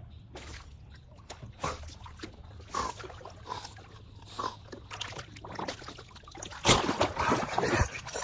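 Dog splashing in water: a string of separate splashes and sloshes, turning into louder, continuous splashing near the end.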